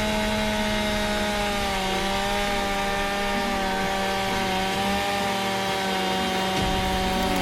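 Chainsaw engine running steadily at a constant pitch, a continuous buzzing drone with no revving.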